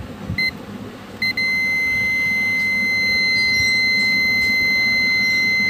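Digital multimeter's continuity beeper: two short beeps in the first second or so, then one steady, unbroken high beep from just over a second in. The beep signals a short circuit on the TV mainboard line under the probes.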